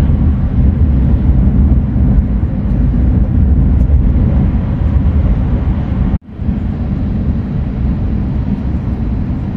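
Steady low rumble and rushing noise inside the passenger cabin of an E6 series Shinkansen running at about 320 km/h. The sound cuts out for an instant a little after six seconds in, then carries on slightly quieter.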